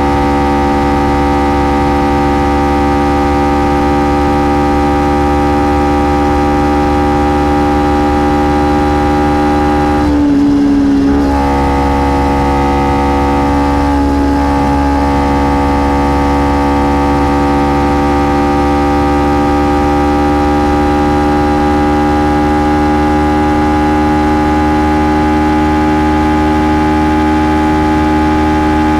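Kawasaki Ninja 300's parallel-twin engine and stock exhaust running at a steady, nearly constant speed while cruising, with a brief break in the note about ten seconds in, after which the pitch sags slowly.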